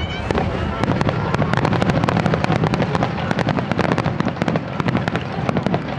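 Finale barrage of size-7 (about 21 cm) aerial firework shells bursting in rapid succession, several booms a second running into one another.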